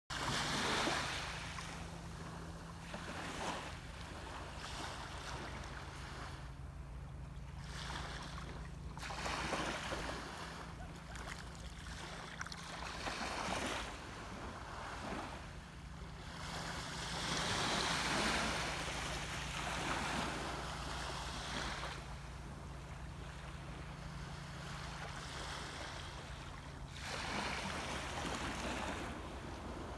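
Small waves washing onto the beach of a calm sea, the hiss swelling and fading every few seconds. A steady low hum runs underneath and stops near the end.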